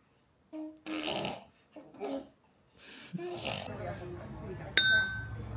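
Short held vocal sounds and breathy, nasal snuffles, then a low steady rumble sets in; near the end a single sharp click with a brief ringing tone.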